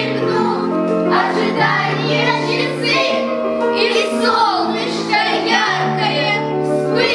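Recorded music with singing over sustained held bass notes and gliding melodic lines.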